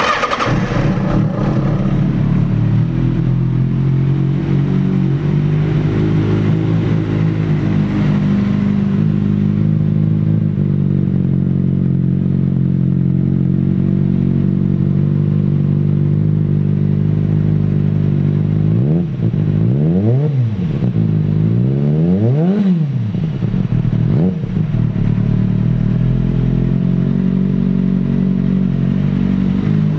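2008 Kawasaki ZX-6R's 599 cc inline-four, through a Two Brothers aftermarket exhaust, starting with a brief clatter and settling into a steady idle. About two-thirds of the way in, the throttle is blipped three times, the revs rising and falling quickly, before it returns to idle.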